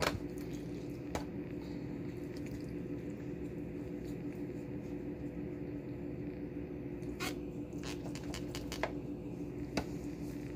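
Hands tying the legs of a raw, butter-coated turkey with kitchen twine: soft wet squishing of the skin and a few short, sharp clicks and crackles, most of them clustered near the end. A steady low hum runs underneath.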